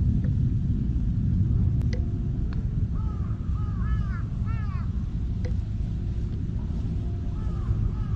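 Steady low outdoor rumble, with a bird calling in a quick run of short rising-and-falling notes near the middle and again briefly near the end, and a few light clicks.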